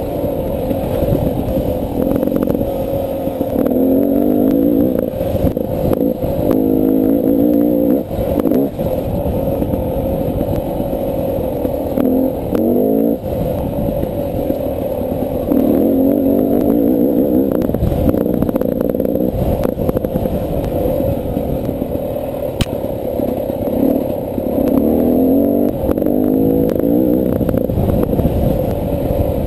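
Beta 300 RR two-stroke dirt bike engine being ridden hard, the revs rising and falling over and over. Clatter and knocks from the bike running over the rough trail are mixed in.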